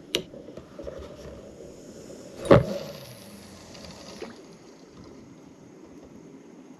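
Handling noise from a spinning rod and reel: a sharp click at the start and a louder knock about two and a half seconds in, followed by a faint hiss for a second or so.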